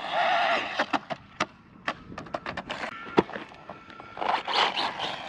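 Small brushless electric RC truck driving over rough dirt and grass: a short burst of motor whine that rises and falls, then a string of sharp clattering knocks as the truck bounces, and another burst of motor and tyre noise near the end.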